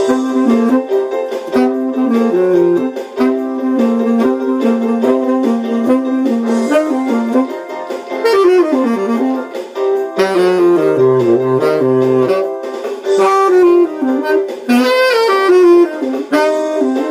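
Rosedale tenor saxophone playing a jazz melody, with a falling slide about eight seconds in and a quick flurry of notes near the end.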